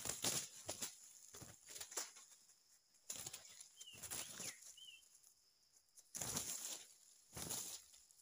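Two junglefowl roosters fighting: repeated flurries of wing-beating and scuffling in dry leaf litter, coming in short bursts with brief pauses between clashes.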